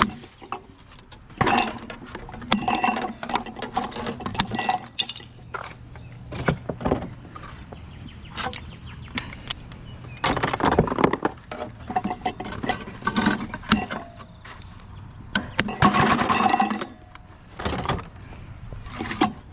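Repeated clattering, knocking and clinking of scrap items being handled, in several bursts, over a faint steady low engine hum.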